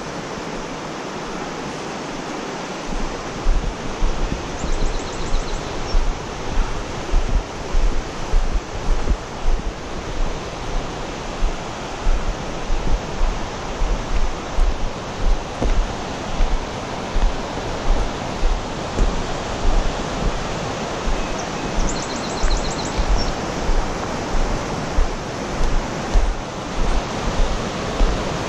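Walking footsteps jolting a body-worn action camera, low thuds about once a second, over the steady rush of a fast creek's rapids.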